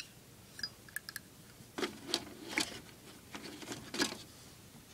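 Faint clicks and light metallic taps of Zippo lighters being handled, with a few brief rustles around the middle and toward the end.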